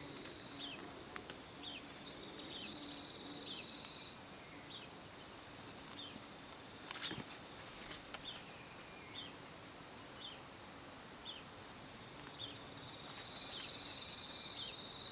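Steady, high-pitched chorus of crickets or similar insects, with a short falling chirp repeating about once a second. A single sharp click sounds about seven seconds in.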